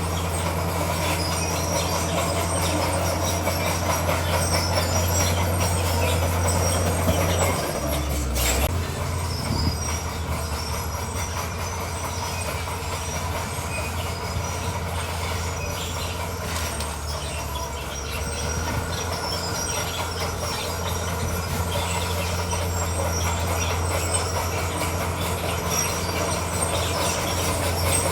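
Crawler bulldozer working: its diesel engine runs steadily while its steel tracks squeal and clank. The engine note shifts about eight seconds in, together with a single sharp clank.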